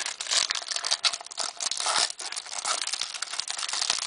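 A hockey card pack's wrapper being torn open and crinkled by hand: a continuous, irregular crackling rustle.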